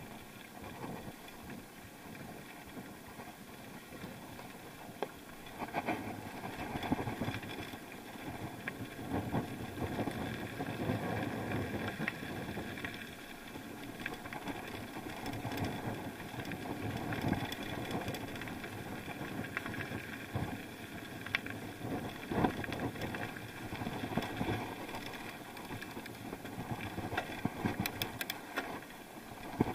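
Bike rolling down a rough dirt road: a steady running noise with frequent short rattles and knocks from the bumpy surface.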